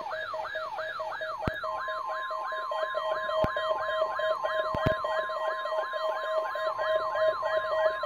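Several NOAA weather alert radios sounding their alarms together, set off by a SAME-coded Required Weekly Test: a siren-like falling sweep repeating about three times a second over a rapidly pulsing beep, joined about two seconds in by a steady high tone. A few sharp clicks fall in the middle.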